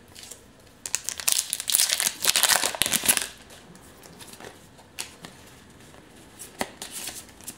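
Pokémon booster pack's foil wrapper being torn open and crinkled for about two seconds, followed by a few soft clicks as the cards are pulled out and handled.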